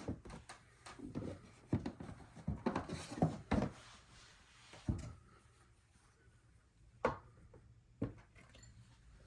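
Handling sounds at a snake enclosure: scattered knocks and rubbing noises, several in the first five seconds, then a sharp click about seven seconds in and another about a second later.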